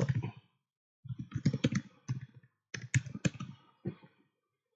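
Typing on a computer keyboard: a quick run of keystrokes in small groups with short pauses, starting about a second in.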